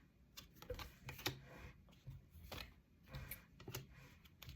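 Tarot cards being shuffled and handled: a scattering of soft, irregular taps and card rustles.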